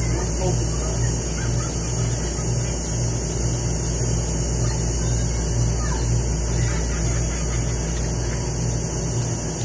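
A steady low hum, like an idling engine, pulsing about twice a second, with faint distant voices.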